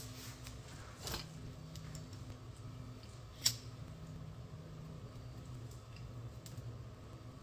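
Quiet room tone: a low steady hum, with a soft rustle about a second in and one sharp click about three and a half seconds in.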